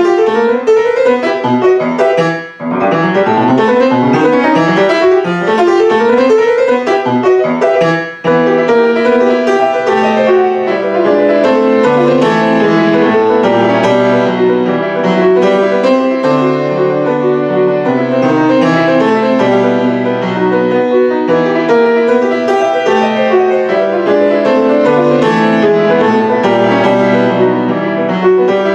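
Grand piano played solo: a fast, busy passage of many notes, with two brief breaks about two and a half and eight seconds in.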